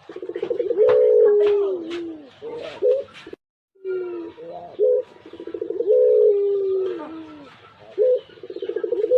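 A pugeru dove, a zebra dove and turtle dove hybrid, cooing its long song twice. Each phrase is a short rising note, then a fast rattling trill, then a long falling coo. The sound cuts out completely for a moment between the two phrases.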